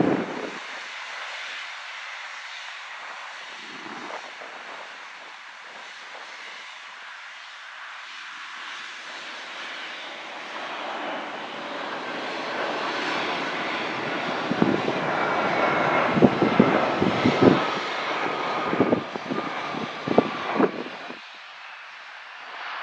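Embraer E175 regional jet's engines rushing as it rolls out on the runway after landing, growing louder as it passes and then dropping away sharply near the end. A faint engine whine sits above the rush. In the second half, gusts of wind thump on the microphone.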